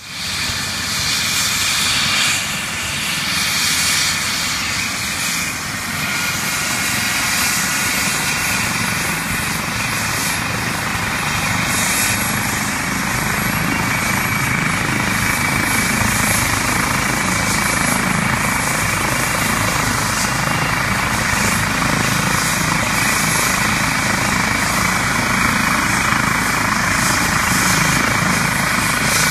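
Eurocopter EC135 twin-turbine rescue helicopter running on the ground with its rotor turning, ahead of lift-off. It makes a steady rotor and engine noise with a high turbine whine, growing slowly louder.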